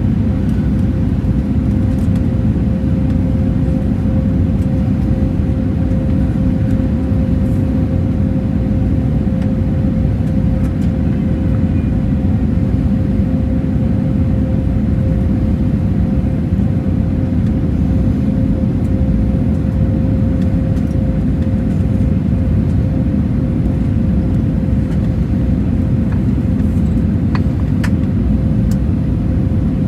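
Steady cabin noise inside an Airbus A320neo on descent: a low, even rumble of airflow and the CFM LEAP-1A engines, with a steady hum tone running through it. A few faint clicks near the end.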